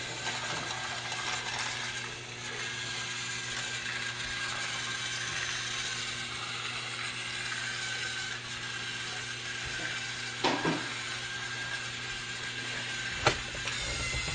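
Battery-powered toy train's small motor and gears whirring steadily. A double click comes at about ten and a half seconds, and a sharper, louder click near the end.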